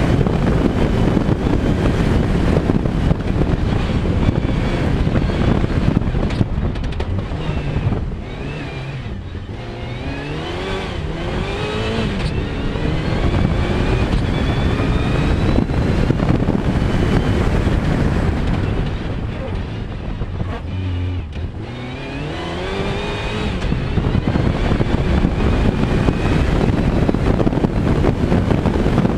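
Rally car engine driven hard on a dirt road, mixed with steady road and wind noise. Twice the engine note drops as the car slows, then its revs climb again gear by gear.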